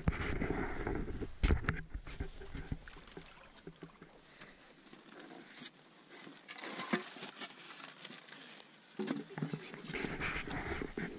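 Shallow lake water splashing and sloshing as people wade and handle water-filled plastic bags, with indistinct voices and a sharp knock about 1.5 seconds in.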